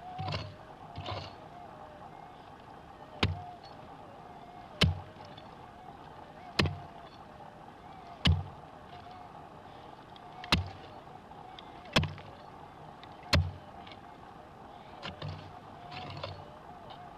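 A prospecting pick striking hard, stony ground while digging out a metal-detector target: seven sharp blows, about one every one and a half seconds, with softer scrapes of loose dirt near the start and near the end. A steady faint wavering tone runs underneath.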